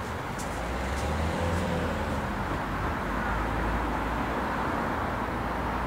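Steady outdoor background noise: an even hiss with a strong low rumble underneath and no distinct events.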